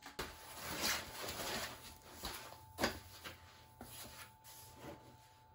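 Cardboard flaps and a black foam packing insert being handled and pulled out of a shipping box: rustling and scraping, with a few sharp knocks, the loudest about three seconds in.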